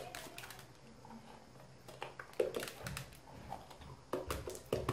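Light scattered taps and knocks of hands working a cored bell pepper over a plastic bowl, knocking the seeds out. They come in small clusters after a quiet first couple of seconds.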